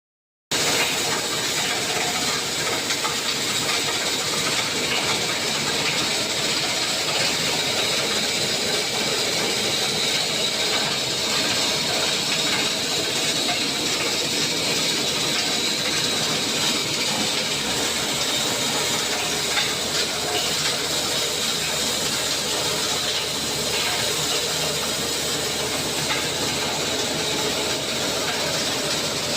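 Concrete mixer machine running steadily, a continuous mechanical noise with a strong hiss.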